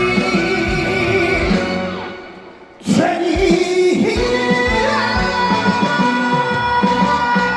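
A trot song performed live: singing over its accompaniment. About two seconds in, the music fades into a short pause, then comes back in with a sharp hit and the singing carries on.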